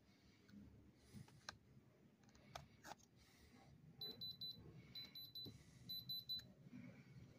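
Handheld diamond tester beeping in three short bursts of rapid high pips about a second apart, starting about four seconds in, as its probe is held to a stone: the tester's alert for a reading up in its diamond range. Faint clicks of the probe and handling come before.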